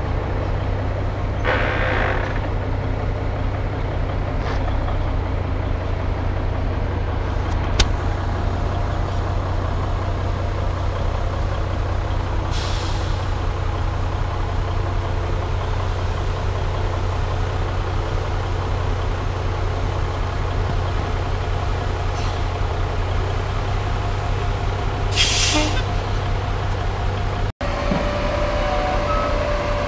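Heavy diesel engines of a Kenworth log truck and a log loader running steadily, with short hisses of released air from the truck's air system, the loudest near the end.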